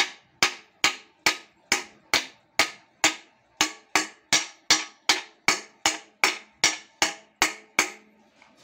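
Hammer blows driving a new ball bearing into the cast aluminium bearing holder of a Whirlpool top-load washer's mechanism hub, struck on the outer race. The blows come evenly, about two and a half a second, each a sharp metallic knock with a short ring, and stop near the end.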